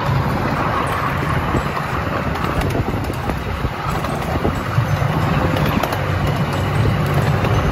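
Miniature railway train running along its track, heard from a carriage behind the locomotive: a steady rumble of wheels on rails under a low engine hum, with scattered clicks.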